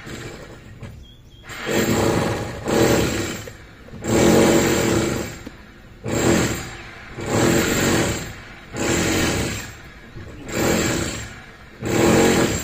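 Potter wasp buzzing in repeated short bursts, about one every one to two seconds, while it works mud into its nest cell.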